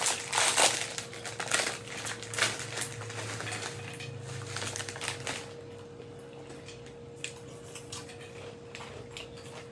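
Close-up eating of a crunchy snack mix: dense crackling crunches and light clinks, thinning to scattered ticks about halfway through, over a faint steady hum.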